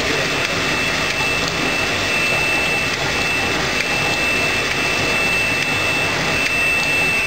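Rotary glass-bottle wine filling and capping machine running: a steady mechanical hum with a high, steady whine over it and a few faint clicks of bottles and caps.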